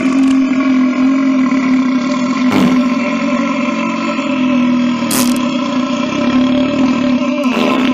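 A man's long, drawn-out belch held at a steady pitch, with short noisy breaks about every two and a half seconds.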